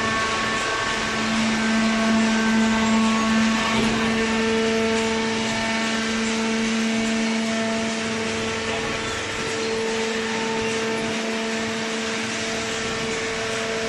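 Hydraulic baler's power unit running: a steady machine drone under a wide noise bed, with a low hum that swells for a few seconds near the start and a higher tone that comes and goes.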